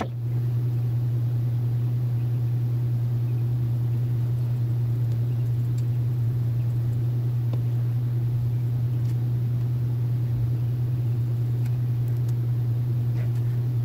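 A steady low hum, with a few faint, light ticks.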